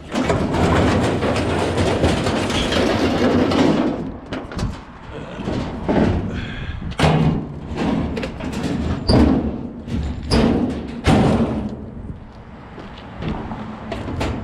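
Junk being handled and loaded: a few seconds of scraping and rattling, then a series of separate thuds and bangs as items are set down or thrown.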